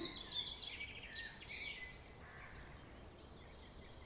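Birds chirping: a quick run of high, thin notes over the first two seconds, then faint outdoor background.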